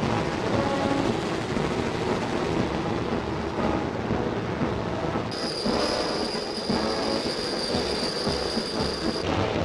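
Dense, steady rumble of military vehicle engines on an old film soundtrack. A steady high-pitched whine joins about five seconds in and cuts off shortly before the end.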